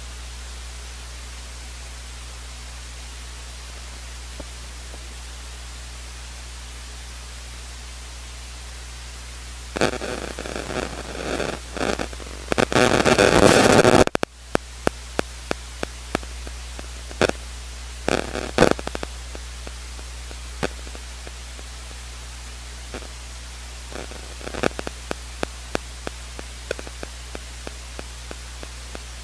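Dead air on an open broadcast audio line: a steady electrical hum and hiss. A few seconds of louder crackling noise come about ten seconds in, followed by scattered sharp clicks.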